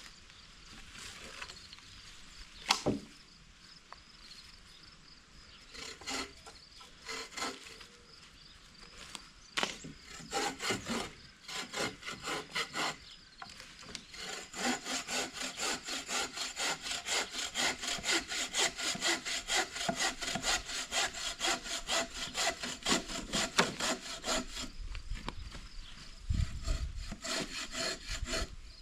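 Hand saw cutting through wood: a few uneven strokes and a sharp knock at first, then from about halfway a long run of fast, even strokes that stops near the end.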